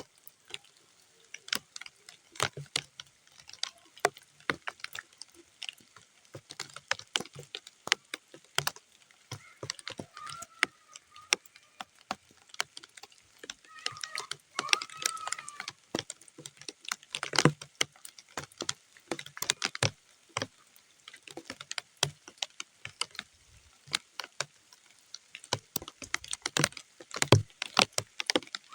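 Rain falling on muddy ground: separate drops landing in irregular sharp taps, several a second, with quiet gaps between them.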